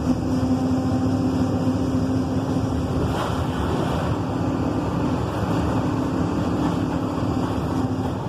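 Volkswagen 17.230 EOD truck's diesel engine running steadily, with a constant drone and a held tone over the rumble.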